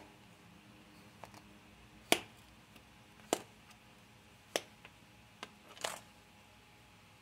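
Hands working moldable play sand with a knife and plastic molds: a series of sharp clicks and taps, about five louder ones roughly a second apart, over a faint steady hum.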